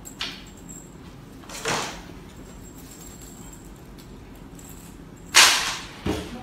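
Handling noises from white particleboard rack panels on a tiled floor: a short scrape about a second and a half in, a louder, longer scrape about five seconds in, then a dull knock.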